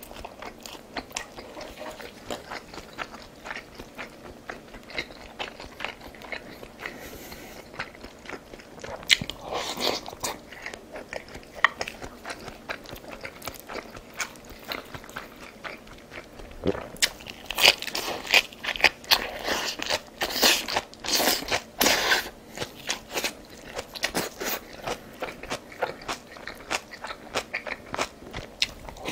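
A person chewing and biting crunchy food close to the microphone, with a run of small wet clicks and a louder stretch of crunching about two-thirds of the way in.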